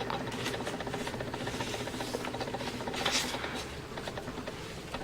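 Hands handling a boxed music album and its discs: packaging rubbing and rustling with many small clicks, and a louder scrape about three seconds in.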